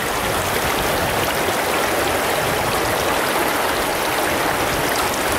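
Steady rushing of a trout stream's flowing water.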